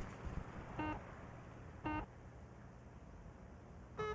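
Short electronic warning beeps from the mining vehicle's control terminal, sounding as its status reads compromised. There are two beeps about a second apart, then a higher-pitched one near the end as the system begins rebooting, over a faint low hum.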